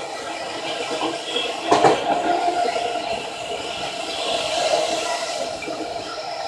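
Seibu 30000 series electric train running: a steady rush of wheel and rail noise, with one sharp knock about two seconds in.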